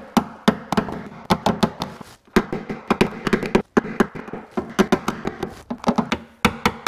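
A hammer striking a nylon knockdown held against a Ford Fiesta's steel rear quarter panel: a quick, uneven run of light taps, a few a second, with brief pauses. The taps lower the high spots (crowns) along the body line during a paintless dent repair.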